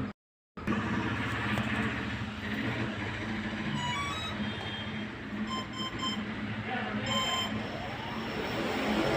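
Electronic speed controller of a brushless RC plane motor playing its power-up tones: a quick rising run of notes, then three short beeps and one longer beep, the usual sign that it has detected the battery and armed. The beeps sit over steady background noise with a low hum.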